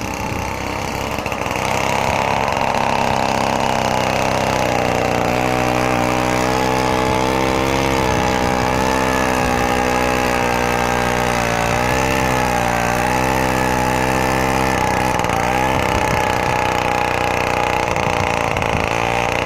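Homemade snowblower driven by a Druzhba chainsaw's two-stroke engine, running steadily at speed. It gets louder about a second and a half in, and its pitch wavers a little now and then.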